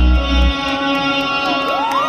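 Live band ending a song: the bass and drums stop about half a second in, leaving held chords ringing. The crowd starts whooping and cheering near the end.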